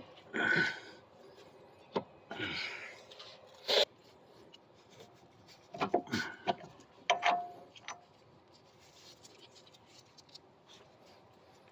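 Hands and tools working on a car's front suspension parts: scraping and rubbing of metal parts, sharp metallic clicks, and a brief squeak about seven seconds in.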